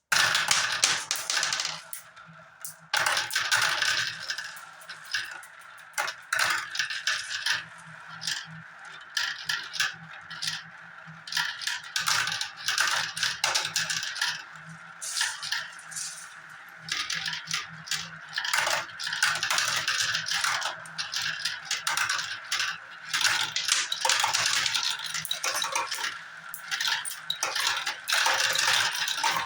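Marbles rolling and clattering along a marble run track: a continuous stream of small hard clicks and rattles as many marbles knock against the track and each other, thinning briefly about two seconds in and getting busier near the end.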